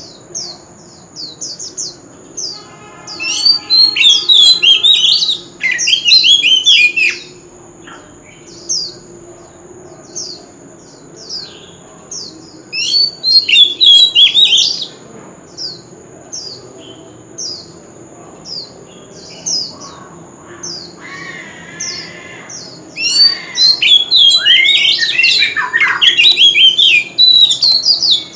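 Oriental magpie-robin singing: three loud bursts of rapid, varied whistled phrases. Between them runs a steady series of short downward-slurred notes, over a thin steady high whine.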